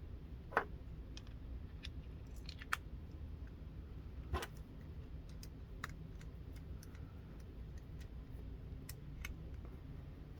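Scattered light clicks and taps of small metal parts as the Shine magnetic lock's key and mechanism are handled. The loudest clicks come about half a second in and about four and a half seconds in.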